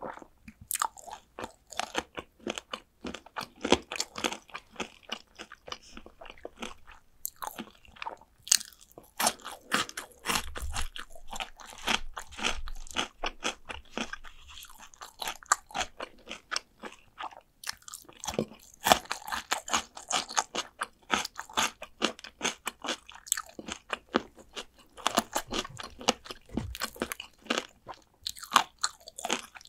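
Close-up crunching and chewing of Korean fried chicken drumsticks: bites into the crisp fried coating crackle in quick runs, with brief pauses between mouthfuls.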